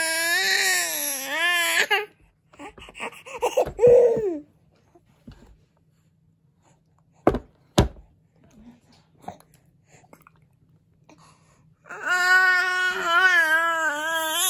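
A nine-month-old baby letting out long, loud, wavering cries: one at the start and another from about twelve seconds in, with a few shorter sounds around four seconds. In the quiet between come two sharp clicks, about half a second apart.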